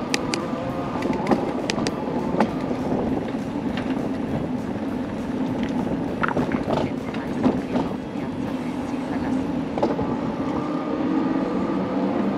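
Bicycle rolling along a paved cycle path: a steady rush of tyre and wind noise with frequent small rattles and clicks from the bike.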